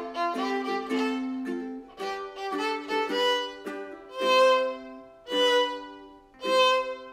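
Background music: a light violin-led tune in short phrases, ending with three louder held notes about a second apart.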